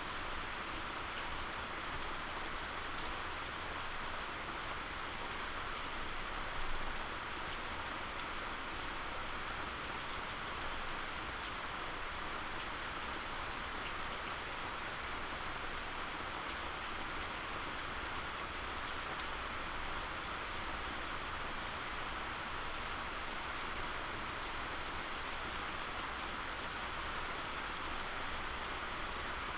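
Steady rain falling, an even hiss with scattered drop ticks, played as a sound meditation. A small louder tap comes about seven seconds in.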